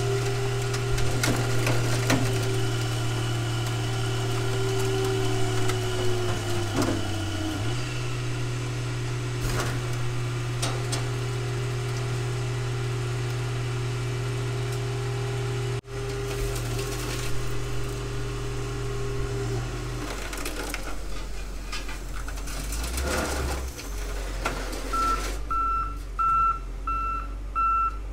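Car crusher's hydraulic power unit running with a steady hum, with occasional cracks and creaks of the car body under the press; the pitch sags briefly about seven seconds in. The hum stops about two-thirds of the way through, and near the end a wheel loader's reversing alarm beeps repeatedly.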